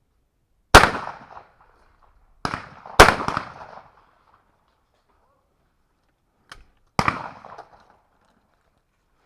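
Shotgun shots: two loud, close reports a little over two seconds apart, each with a short echoing tail, plus quieter, more distant reports just before the second one and about seven seconds in.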